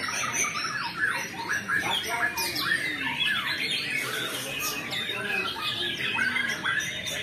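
Several caged white-rumped shamas (murai batu) singing at once in contest, a dense, unbroken tangle of overlapping whistles, trills and harsh calls.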